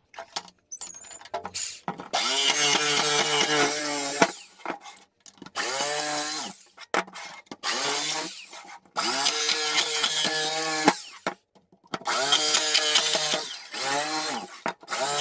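A jigsaw cutting through a plastic milk crate in about five short runs. The motor spins up at the start of each run, holds a steady pitch while the blade rasps through the plastic, then stops between cuts. A few light knocks come in the first two seconds as the crate is handled.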